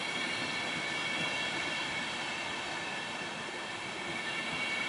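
Deutsche Bahn Intercity passenger coaches rolling slowly past on the rails: a steady rumble of wheels on track, with a faint, steady high-pitched squeal over it.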